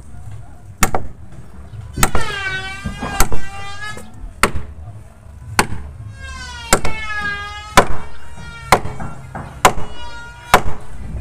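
Hammer blows striking about once a second, sharp single strikes on the wooden boat's frames and planking. Twice, a drawn-out call rises and falls between the blows.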